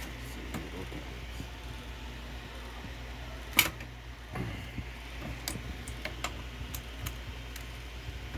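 Clicks and light knocks of an RX 580 graphics card being lifted out of a PC case after its slot latch is released. One sharp click comes about three and a half seconds in, and a few lighter ticks follow, over a low steady hum.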